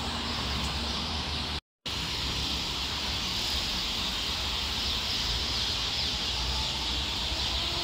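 Steady outdoor street ambience: an even hiss over a low traffic rumble. It cuts out for a fraction of a second about one and a half seconds in.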